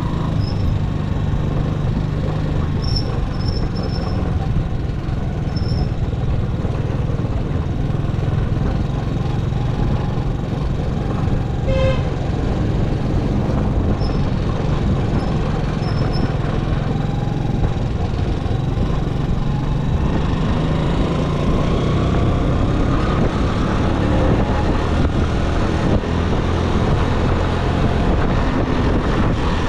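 A motor vehicle's engine running steadily under road and wind noise, its pitch rising gradually a little past two-thirds of the way through.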